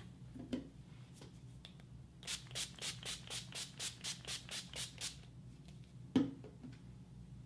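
Makeup setting spray pumped about a dozen times in quick succession, a rapid train of short hissing mists. A single knock about six seconds in.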